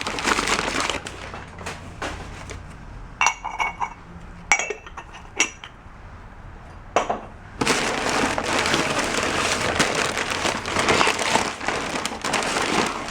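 Glass and china dishes clinking together as they are handled: a handful of short ringing clinks between about three and seven seconds in. Rustling handling noise comes before and after the clinks.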